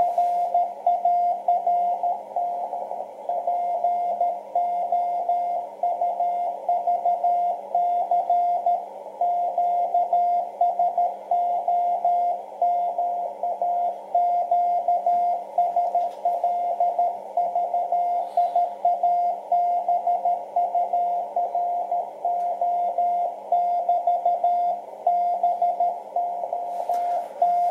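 Morse code (CW) on a 10 MHz amateur radio transceiver's speaker: a single mid-pitched tone keyed on and off in dots and dashes over a steady hiss of band noise heard through a narrow receive filter.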